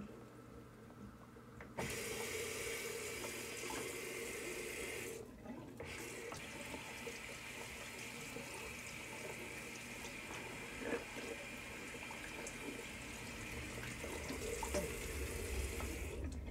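Water running steadily from a bathroom tap. It is turned on about two seconds in, breaks off briefly around five seconds, then runs until just before the end.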